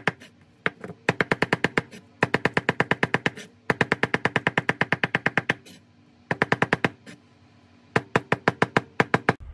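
Chinese cleaver chopping green onions on a wooden cutting board: rapid, even strokes about ten a second, in runs of one to two seconds with short pauses between.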